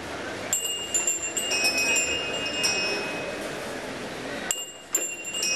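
A small metal temple bell rung repeatedly in quick succession during Hindu worship, a bright, high ringing with several clear tones. It stops briefly near the end, then starts again.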